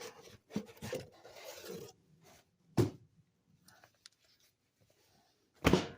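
Comic books being slid and rubbed against each other as they are packed back into a cardboard box, with a short knock about three seconds in and a louder thump near the end.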